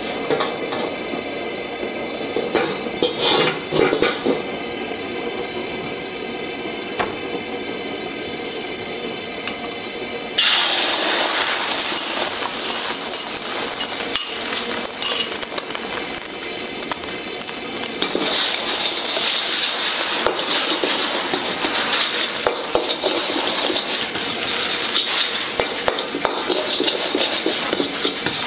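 A wok clinks a few times against the gas burner's grate. About ten seconds in, beaten eggs hit the hot oil and start sizzling loudly, and the sizzle runs on while a metal wok ladle scrapes and stirs the eggs around the pan.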